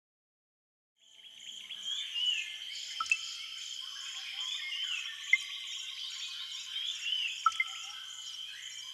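Nature ambience fading in about a second in: an insect chorus pulsing about twice a second, with chirping bird calls and a few sharp clicks.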